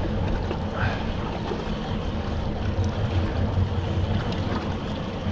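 Steady low hum of a boat's Yamaha outboard engine idling, with wind and water noise around it.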